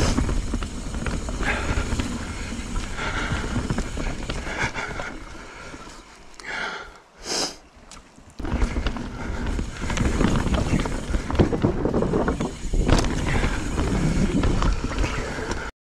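Knolly mountain bike riding down dirt-and-rock singletrack: a steady rush of tyre noise and rattling from the bike, with wind on the camera microphone. It goes quieter for a couple of seconds about halfway, with one short hiss in that lull, then picks up again.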